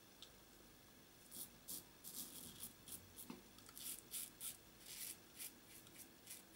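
Gillette Tech double-edge safety razor scraping lathered beard stubble on the across-the-grain pass. It makes a faint rapid series of short rasping strokes, starting about a second in.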